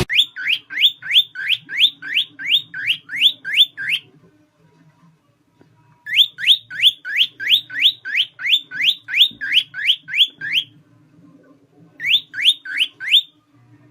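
A pet bird whistling the same short rising note over and over, about three a second, in three runs with short pauses between them.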